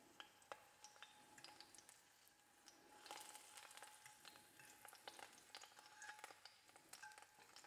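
Garlic cloves and a basil leaf sizzling faintly in olive oil in a nonstick frying pan, with light clicks of a metal fork pushing them around the pan. The sizzle and fork clicks get busier from about three seconds in.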